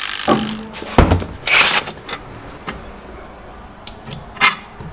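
Metal hand tools clinking and scraping on a car's steering tie rod end as it is taken off, with one sharp knock about a second in and a few light clicks near the end.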